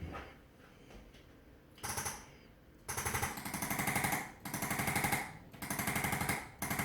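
A handheld electric percussive chiropractic instrument rattles out very rapid, even taps in four runs of about a second each with short pauses between, starting about three seconds in. A shorter burst comes about a second before.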